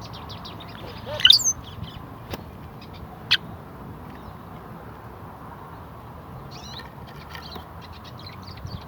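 Several wild birds chirping and calling, with a louder burst of calls just over a second in and a short sharp call a couple of seconds later, then a busier run of chirps near the end.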